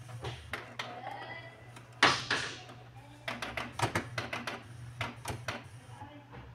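A single loud clunk about two seconds in, then a run of quick sharp clicks and knocks lasting a couple of seconds, over a low steady hum.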